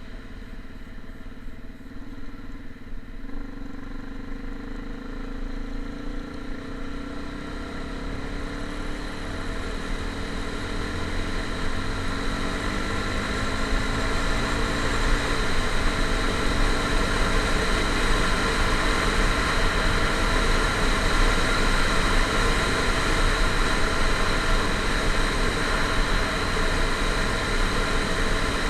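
A motor vehicle's engine running, growing louder over the first half and then holding steady.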